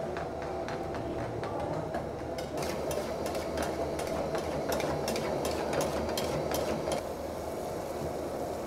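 Metal spatulas clattering and scraping against a metal karahi as curry is stirred hard: quick, irregular clicks and clanks, thickest through the middle and thinning near the end, over a steady low rumble.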